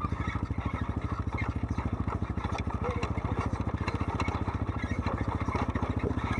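ATV engine chugging steadily at low revs with an even, rapid pulse while the machine creeps down a rocky trail.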